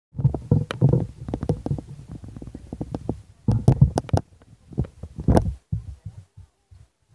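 Wind buffeting the microphone: irregular low rumbling gusts with a few sharp clicks, strongest in the first second and again around four and five seconds in, dying away near the end.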